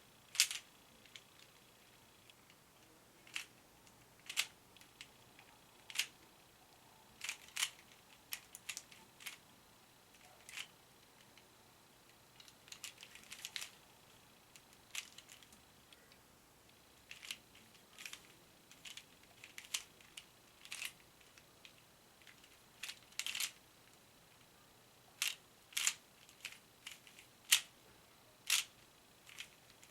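A 3x3 Rubik's cube being turned by hand: irregular sharp clicks of the layers turning, some single and some in quick clusters.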